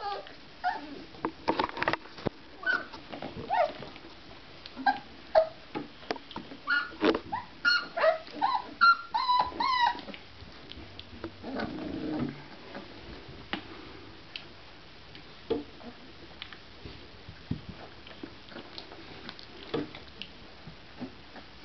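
24-day-old Basset Artésien Normand puppies whimpering and yipping in short, high, bending calls while they play-fight, many in quick succession. About ten seconds in the calls stop and it goes quieter, with a short low sound and a few faint knocks.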